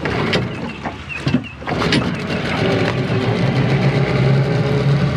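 Tohatsu 9.8 two-stroke outboard starting: a few uneven knocks, then about two seconds in it catches and runs steadily. It is running with the choke pushed in and the throttle opened a little, to lean out a mixture that was running too rich.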